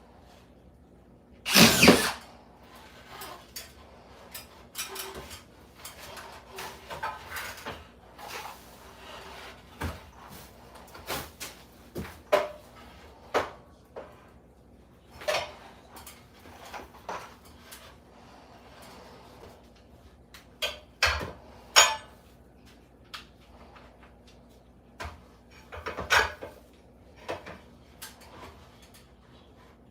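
Scattered knocks, clicks and short scrapes of hand tools and materials being handled during ceiling repair work, with a louder half-second burst of noise about two seconds in, over a faint steady hum.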